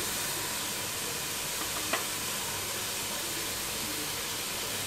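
Sliced capsicum, carrot and spring onion sizzling in oil in a pot, a steady frying hiss, with one light click about two seconds in.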